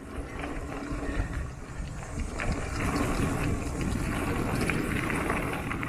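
Mountain bike rolling over a dirt trail: a steady low rumble from the tyres and riding, with scattered clicks and rattles from the bike.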